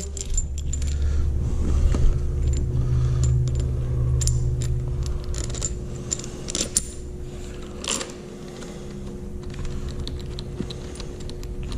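Hand tools and steel fasteners clicking and clinking irregularly as handguard mounting hardware is worked on a motorcycle handlebar, over a steady low hum.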